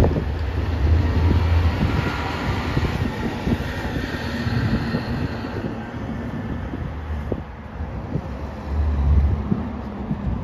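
Heavy municipal dump truck driving past, its diesel engine and tyres swelling and then fading about halfway through, followed near the end by a police SUV driving by. Wind buffets the microphone in gusts.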